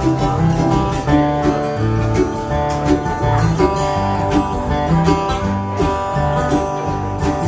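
Live acoustic country band playing an instrumental intro: strummed and picked acoustic guitar over a stepping bass line, without vocals.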